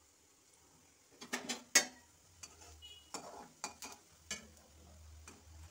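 Steel spatula scraping and knocking against an iron kadai while fish-roe fritters are turned in hot oil. There are several sharp scrapes from about a second in, with a low hum near the end.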